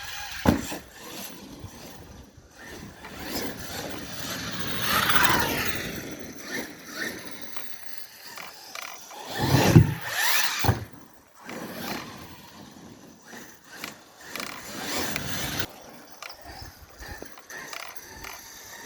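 Arrma Kraton 8S brushless motor and ESC driving a 1/8-scale RC car in repeated bursts of acceleration, its whine rising and falling, loudest about ten seconds in. The punch and motor timing are turned down for a first run-in.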